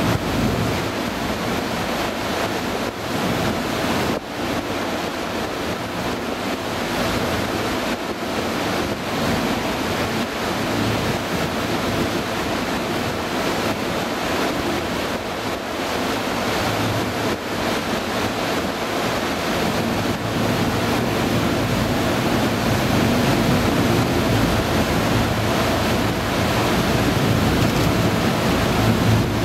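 Steady rush of wind and water heard from aboard a moving harbour tour boat, with wind buffeting the microphone and the boat's engine running underneath.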